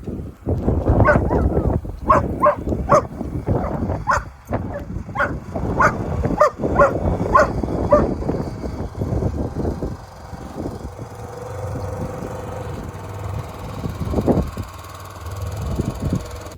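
A dog barking in a quick run of short barks that stops about eight seconds in, over a steady low rumble of wind on the microphone.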